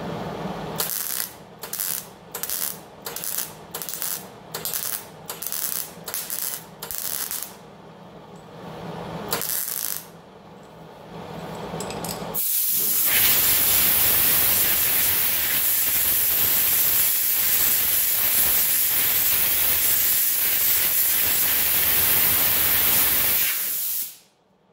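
MIG welder laying a quick run of about ten short tack welds along a car body seam, each a brief crackling burst, with one more a couple of seconds later. Then a homemade compressed-air blowgun hisses steadily for about ten seconds and cuts off abruptly near the end.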